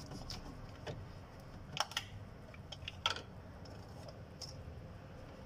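A few light clicks and taps from a plastic engine-oil bottle being handled at the engine's oil filler while oil is poured in, over a low steady hum.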